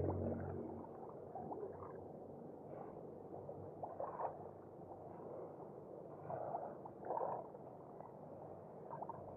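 Calm sea water lapping softly at the shore, with small gurgling splashes every second or two.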